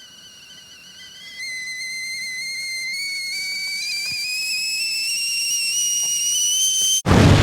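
Kettle whistling as it comes to the boil, its single shrill tone slowly rising in pitch and growing louder. Near the end it is cut off by a sudden loud explosion-like blast.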